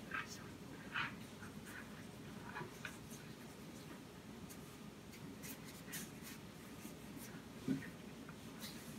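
Palms rolling a thin rope of pie dough on a silicone baking mat: soft, scratchy rubbing strokes scattered through, with a single dull thump near the end.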